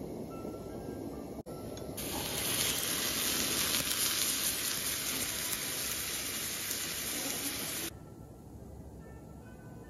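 Dashi broth poured into a hot cast-iron skillet sizzling loudly for about six seconds, starting about two seconds in and stopping abruptly near the end.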